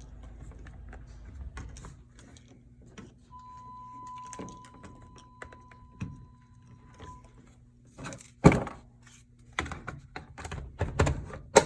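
Handling and clicking plastic chemical-dispenser parts together as the metering tips are pushed back in and the hose is connected: scattered light knocks and clicks, with a sharp thunk about two thirds of the way in and a cluster of knocks near the end. A faint, steady high tone sounds for a few seconds in the middle.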